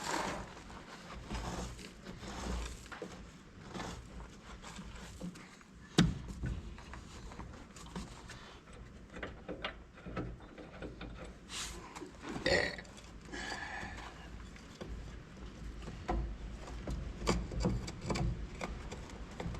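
Scattered clicks and clanks of tools and parts being handled during repair work, with one sharp knock about six seconds in and a short run of scraping and clinking a little past the middle.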